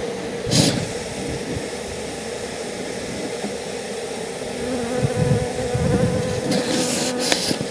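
Honeybees buzzing in a steady hum around an opened hive. There are brief noises about half a second in and again near the end.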